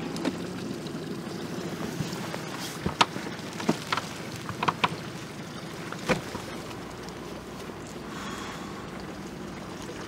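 Outboard motor of a small inflatable expedition boat running steadily under way. A few sharp knocks come near the middle.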